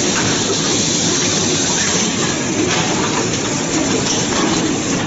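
Steady mechanical din of an automated assembly line running: conveyors, robot arm and other machinery, with no single event standing out.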